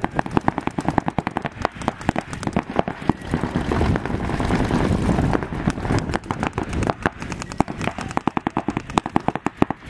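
Paintball markers firing rapid strings of shots, many sharp pops a second, overlapping one another.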